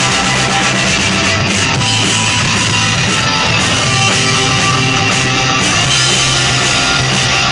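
Punk rock band playing live, loud and continuous: distorted electric guitar over drums.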